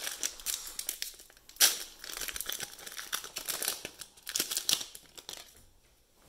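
Foil wrapper of a Donruss football card pack being torn open by hand, crinkling and crackling, with one sharp loud tear about one and a half seconds in. The crinkling dies away shortly before the end.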